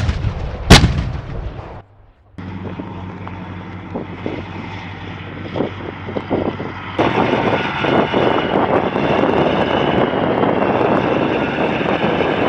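An AS-90 155 mm self-propelled howitzer fires once about a second in, a loud boom with a long rolling tail. After a short break, the tracked vehicle's diesel engine runs steadily with clattering tracks, louder and busier from about seven seconds in as the gun drives across the field.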